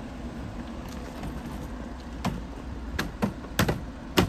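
Hands slapping and pressing an Audi A6's front bumper cover back onto its clips: about half a dozen sharp knocks and clicks in the second half. Under them runs the low hum of the car's engine idling.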